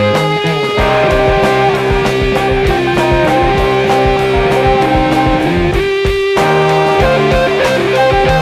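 Early-1970s progressive rock: electric guitar holding long notes over bass guitar and a steady drum beat, with a brief break in the bass and drums about six seconds in.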